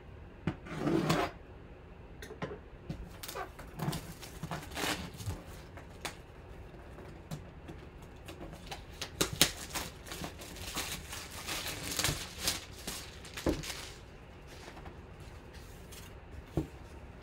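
Plastic shrink wrap being cut and torn off a cardboard box: irregular crinkling and crackling, busiest through the middle and quieter near the end as the box is handled.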